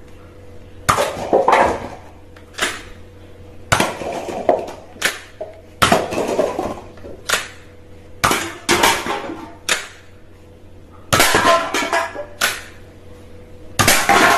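Irregular clattering knocks and clinks of hard objects, a dozen or so sharp hits spaced unevenly, some ringing briefly, over a faint steady hum.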